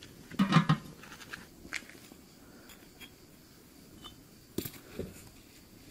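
A thin metal tray clattering and ringing briefly as it is set down on a metal cooking pot, about half a second in, followed by a few light clicks. Near the end come two short knocks of bricks being set down on the ground.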